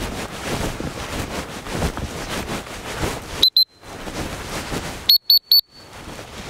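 Footsteps swishing through grass, then sharp blasts on a dog-training whistle: two short, high, loud toots about three and a half seconds in and three more a second and a half later, the usual signal to turn a quartering bird dog.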